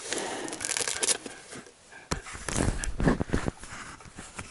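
Rustling and handling noises inside a car cabin, then a few dull thumps from about two to three and a half seconds in.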